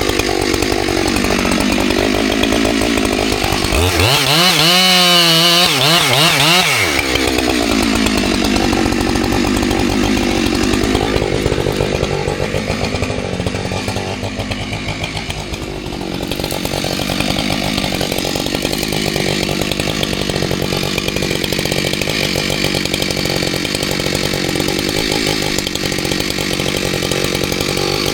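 Husqvarna 592 XP two-stroke chainsaw running hard, its pitch swinging sharply up and down about four seconds in as it is revved, then running on steadily with a slight drop in loudness midway.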